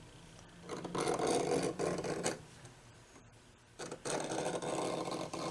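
Steel scribe dragged hard around a clamped pattern, scratching a deep line into a metal knife blank: two long scraping runs, one starting about a second in and another at about four seconds, with a short pause between.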